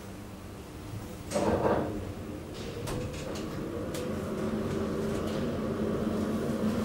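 Schindler hydraulic elevator: a short rattling thump about a second and a half in, then the hydraulic pump unit's steady hum, slowly getting louder, with a few faint clicks.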